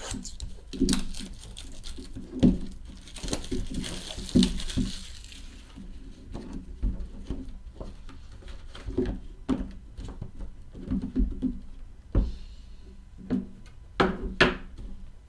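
Hands opening a shrink-wrapped Five Star football card box: the wrap is slit and crinkles in a hissy rustle for a few seconds, then the lid is lifted and the boxes are handled. A string of knocks and taps on the table runs throughout, with the sharpest pair near the end.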